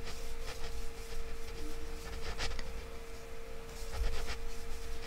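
Crocheting by hand: a metal crochet hook working worsted-weight acrylic yarn, giving soft scratchy rustling with a few small ticks as loops are pulled through.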